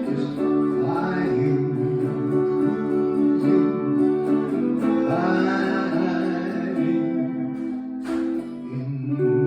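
Guitar music: a guitar holding steady chords in an instrumental passage between sung lines of a song, with a couple of gliding notes over it.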